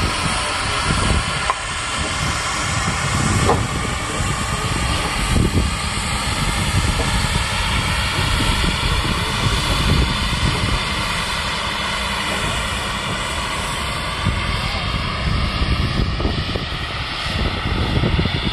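Union Pacific Big Boy No. 4014, a 4-8-8-4 steam locomotive, rolling slowly past with its train: a steady low rumble with a few light knocks.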